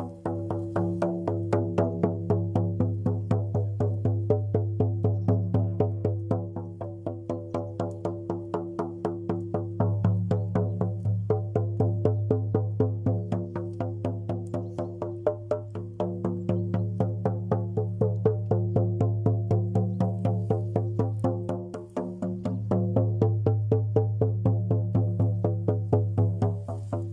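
Music: a steady low drone under held tones, with an even beat of sharp percussive strikes, about three a second.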